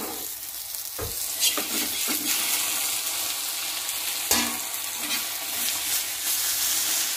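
Banana-leaf parcel of pomfret sizzling with a steady hiss on a dry, unoiled flat tawa over a high flame, with a slotted metal spatula knocking and scraping on the pan a few times.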